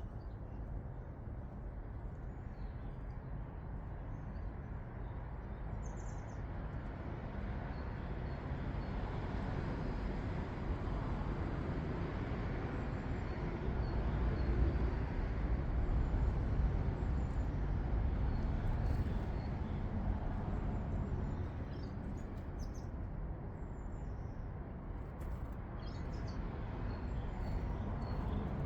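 A distant engine rumble slowly swells, peaks about halfway through and fades away again, like something passing by. Small garden birds give short, faint chirps over it, and a few sharp clicks come near the end.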